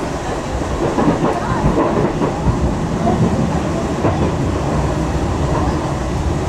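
Tram running along its rails: a steady low rumble of wheels on track, with a few short knocks.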